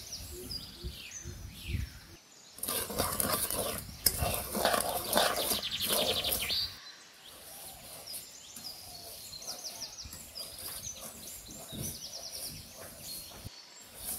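Small birds chirping and twittering. About two and a half seconds in, a louder stretch of rattling, scraping noise comes in and lasts about four seconds.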